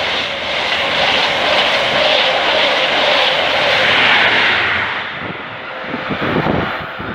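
LNER High Speed Train running through the platform at speed: a loud, steady rush of wheels and air. It swells as the rear Class 43 diesel power car passes about four seconds in, then dies away after about five seconds.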